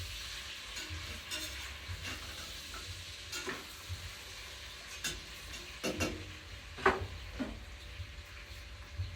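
Food sizzling in a frying pan, a steady hiss, with a utensil clicking and knocking against the pan several times.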